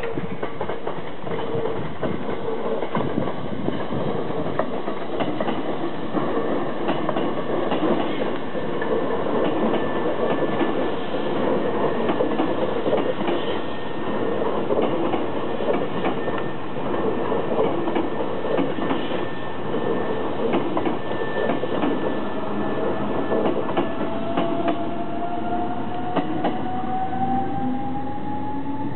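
Hankyu 3300 series resistance-controlled electric train pulling out and running past close by, its wheels clicking steadily over the rail joints as car after car goes by. Near the end a whine rises in pitch as the train picks up speed.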